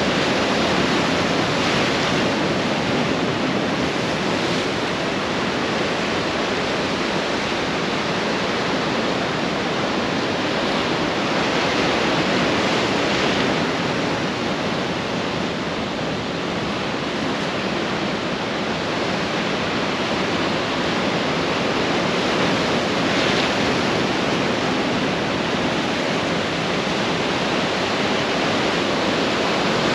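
Ocean surf breaking and washing onto the shore: a continuous, even rush of water that eases slightly midway.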